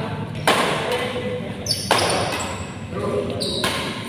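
Badminton rally in an echoing hall: a racket strikes the shuttlecock three times, about half a second, two seconds and three and a half seconds in, with shoes squeaking on the court floor between the hits.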